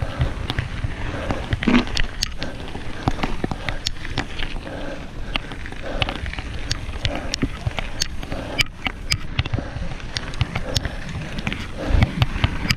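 Mountain bike riding over a rough, rocky dirt trail, heard from a camera mounted on the bike: tyres crunching on gravel and a steady run of sharp clicks and rattling knocks from the bike over the bumps, over a low rumble.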